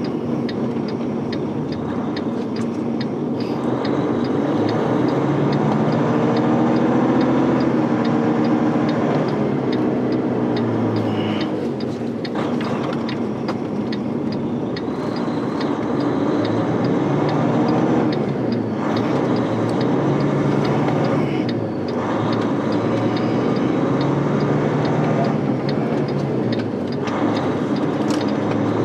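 Semi truck's diesel engine and road noise heard from inside the cab while driving, the engine note rising and dropping several times.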